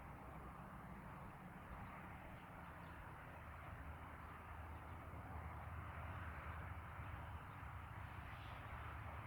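Faint, steady outdoor background noise: a low rumble under an even hiss, with a couple of faint short sounds near the end.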